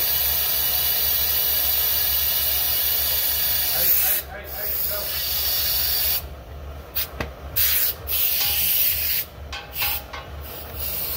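High-pressure jet from a hand-held trigger wand hissing steadily, then cut off and on in short bursts from about four seconds in, over a low steady hum.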